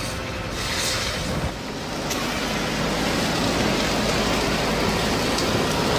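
Steady rushing hiss of a fire hose jet spraying water into burning, smoking scrub, with a brief dip about a second and a half in.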